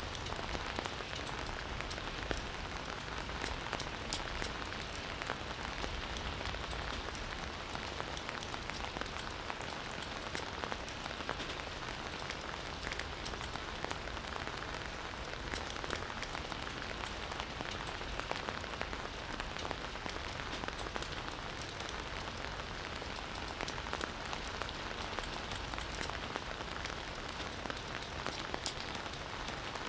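Campfire burning, a steady hiss of flames with many small sharp crackles and pops from the wood.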